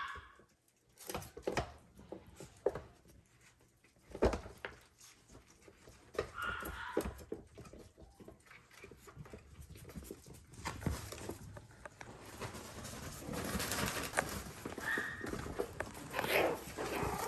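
Maltese puppies moving and playing, with scattered clicks and knocks and short, high whimpers a few times.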